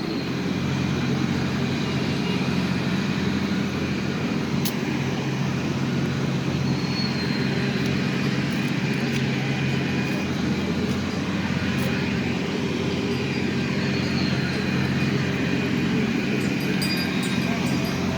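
Children's ride train running: a steady mechanical drone that holds an even level.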